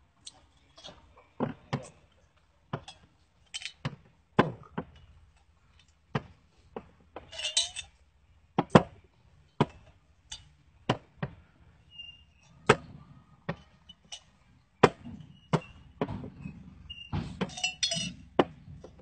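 Small glass liquor bottles being set down one after another on a table among other bottles, each landing with a sharp clink or knock about a second apart. Twice, partway through and near the end, several bottles clatter together.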